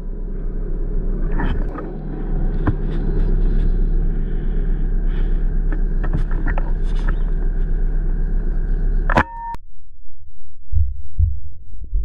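Steady low rumble with a few faint clicks, cutting off suddenly with a sharp click about nine seconds in. Slow, deep thumps like a heartbeat follow near the end.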